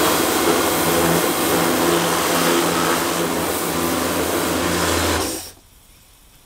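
Pressure washer running: a pulsing pump hum under the hiss of the water jet, cut off suddenly about five and a half seconds in.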